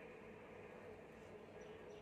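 Near silence: a faint steady background hum, with a few faint, short, high chirps near the end.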